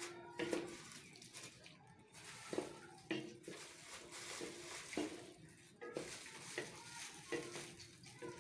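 Metal spoon stirring masala in a cooking pot, knocking and scraping against the pot with repeated short ringing clinks about once a second, over a faint sizzle.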